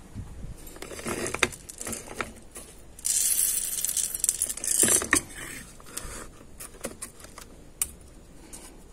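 Whole coffee beans poured into a stainless steel grinder bowl, pattering and clattering against the metal for about two seconds, starting about three seconds in, with a few lighter clicks before and after.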